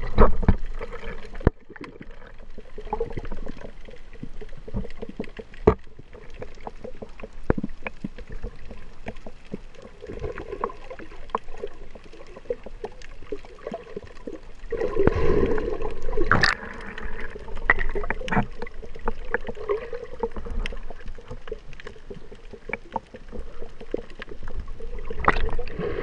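Underwater sound as heard by a submerged camera in its waterproof housing: muffled water movement with many scattered clicks and taps and a faint steady hum, swelling louder about fifteen seconds in.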